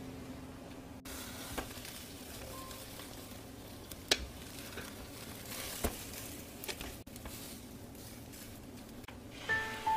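Beaten egg sizzling faintly in a square nonstick egg-roll pan as a rolled omelette is cooked and rolled, with a few light taps of a silicone spatula against the pan.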